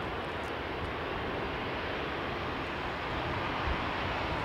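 Airbus A350-900's Rolls-Royce Trent XWB turbofans running at taxi power as the airliner turns onto the runway: a steady jet rush with a low rumble, getting slightly louder near the end as the aircraft swings to face the engines toward the listener.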